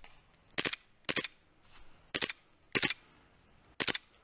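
KWA ATP Auto gas blowback airsoft pistol fired five single shots, unevenly spaced about half a second to a second apart, each a quick double crack.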